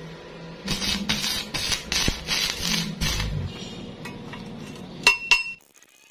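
Thin sheet-metal band clattering and scraping against a steel pipe as it is worked and fitted around it, then two sharp metallic hammer taps that ring briefly near the end.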